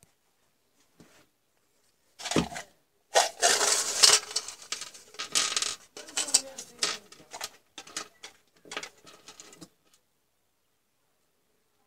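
Small metal repair parts clinking and rattling in a plastic yogurt cup and clattering on a workbench, a busy run of clicks and clatter that starts about two seconds in and stops near ten seconds.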